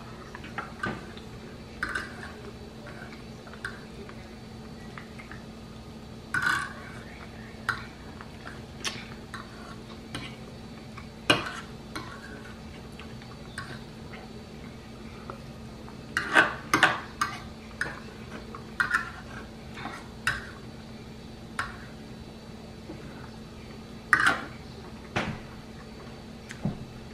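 Eating sounds: a metal fork clinking and scraping on a plate, with chewing and lip-smacking in between, as irregular short clicks and smacks. The busiest cluster comes about two-thirds of the way through.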